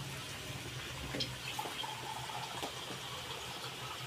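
Water poured into a hot wok of frying onions and green chillies to make the gravy, a faint steady hiss with a couple of light clicks.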